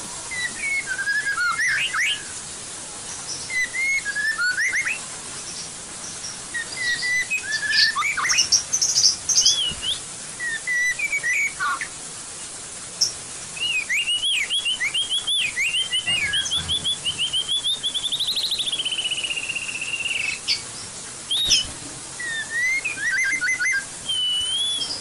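White-rumped shama singing in a cage: a varied run of loud whistled phrases and chirps, with a long, fast trill about two-thirds of the way in that rises and then falls.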